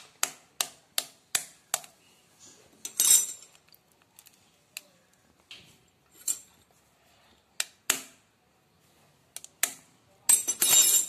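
Eggs tapped against the rim of a steel bowl: a run of sharp clicks, about two or three a second, then the shell cracking open about three seconds in. A second egg is tapped and cracked near the end.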